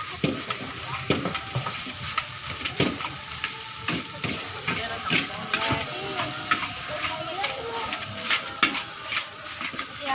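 Red fried rice frying in a wok with a steady sizzle, stirred and tossed with a metal spatula that clanks and scrapes against the pan many times at an uneven pace.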